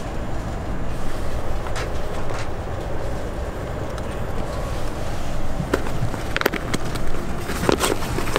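Steady low cabin rumble of an Airbus A380, with rustling and sharp crinkles in the last few seconds as a plastic-wrapped headset is pulled out of a seat-side storage pocket.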